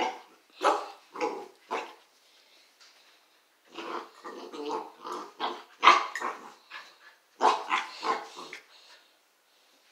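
Springer spaniel puppy barking and growling in play: a few short barks in the first two seconds, then a quick string of them from about four seconds in until near the end.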